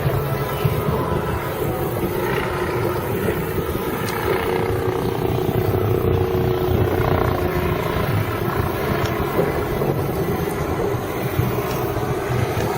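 Helicopter running with a steady drone over a low rumble.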